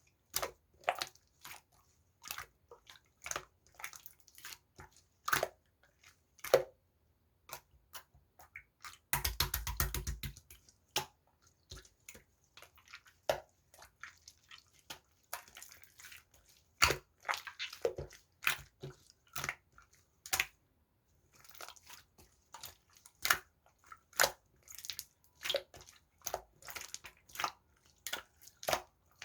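Clear pearl slime with a jelly-like texture being squeezed and pressed by hand, giving irregular sharp clicks and pops as trapped air bursts, with a dense run of crackling about nine seconds in.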